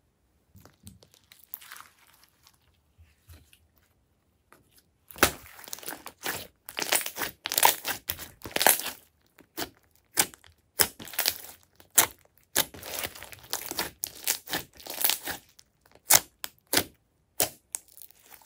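Glossy slime being pressed and kneaded by hand, giving wet, crackly squishing sounds. The sounds are faint and sparse for the first few seconds, then come as loud, irregular bursts from about five seconds in.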